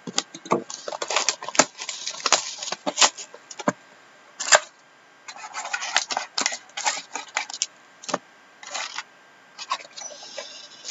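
Hands opening a cardboard trading-card box and handling the card packs inside: a run of sharp taps, clicks and crinkling rustles, coming in clusters with short pauses.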